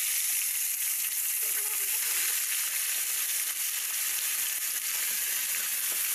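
Whole fish, catfish and tilapia, deep-frying in hot oil in a pan: a loud, steady sizzle of oil bubbling vigorously around them.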